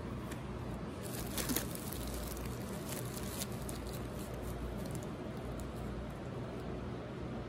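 Handling noise: plastic packaging and a plastic-covered tabletop crinkling as items are picked up and shown. There are a few sharp crinkles about a second and a half in, over a steady low hum.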